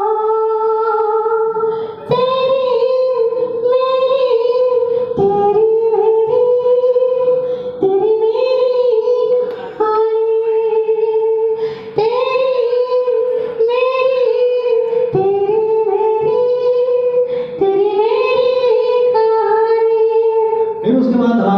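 High-pitched wordless singing in a female-sounding voice, a male mimic imitating a female playback singer. Each phrase rises into a long held note, and the phrases repeat about every two seconds.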